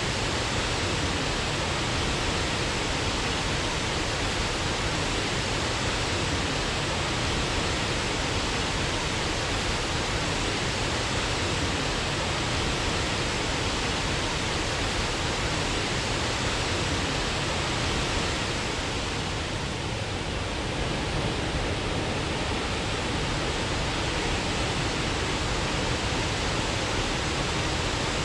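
Waterfall: a steady, even rush of falling water, easing slightly for a moment about twenty seconds in.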